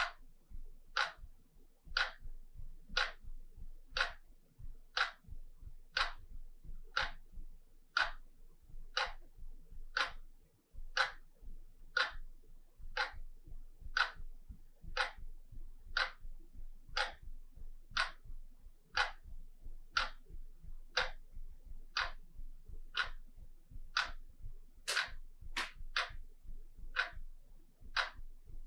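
Wall clock ticking steadily, one tick a second.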